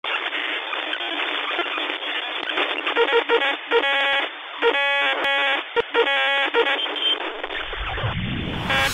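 Radio-style static: a crackling hiss that sounds thin, as if through a two-way radio, with runs of electronic beeping tones in the middle. A whoosh starts right at the end.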